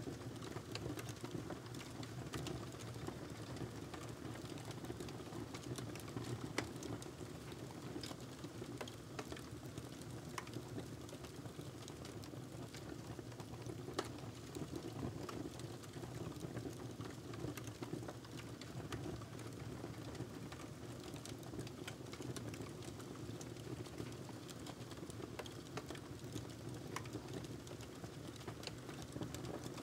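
Steady low background noise with scattered soft clicks and light crackles.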